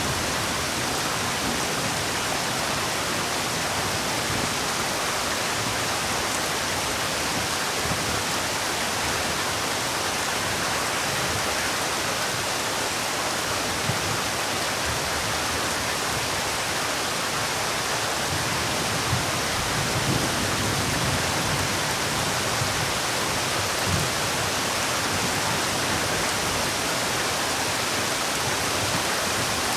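Heavy rain falling steadily: a dense, even hiss of rain with no let-up.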